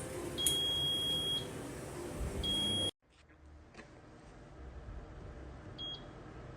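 Electronic control-panel beeps from an air fryer: a long beep about half a second in, a shorter one around two and a half seconds, and a brief one near the end. The appliance's fan hums steadily under the first half.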